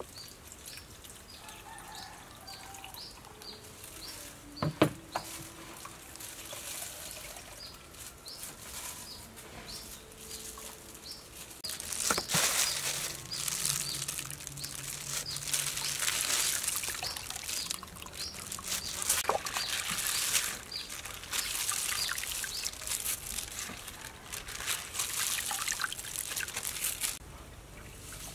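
Freshly squeezed coconut milk pouring and trickling through a mesh strainer into a glass bowl, starting about halfway in. A short high chirp repeats about twice a second throughout, with one sharp knock early in the quiet first half.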